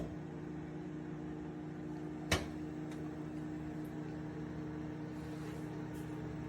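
Cuisinart CMW-200 convection microwave running with a steady electrical hum, and one sharp click about two seconds in.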